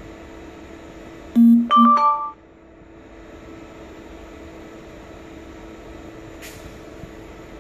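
Cooling fans of a 15R 330 W beam moving-head light running with a steady hum. About a second and a half in, a loud, short electronic chime of several tones at different pitches sounds for under a second.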